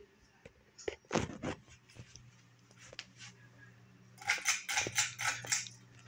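A 52-inch Heritage Lancaster ceiling fan running. A few sharp clicks come first, then a steady low motor hum from about a second and a half in. Later a louder burst of irregular clicks and rattles comes.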